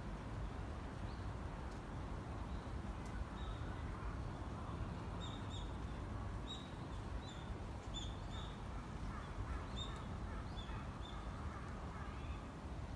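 Birds calling: many short, high chirps, busiest in the middle stretch, over a steady low rumble.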